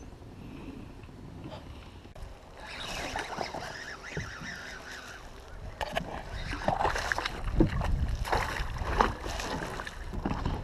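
Water splashing hard and irregularly beside a kayak from about halfway on: a hooked snook thrashing at the surface as it is scooped into a landing net. The first few seconds hold only a faint wash of water.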